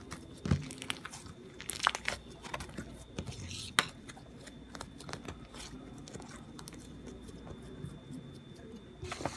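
Irregular crinkling and crunching clicks, a few of them sharp and loud, over a faint steady high-pitched hum.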